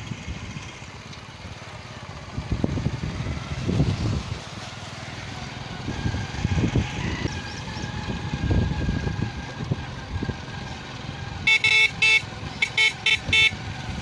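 A vehicle horn honking in a quick run of five or six short toots near the end, over an uneven low rumble that swells and fades several times.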